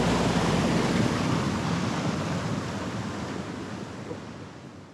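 Steady rushing of river water mixed with wind on the microphone, fading out gradually toward the end.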